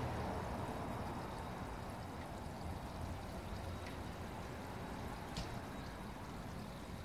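Steady running, pouring water from a garden koi pond, with a short click about five and a half seconds in.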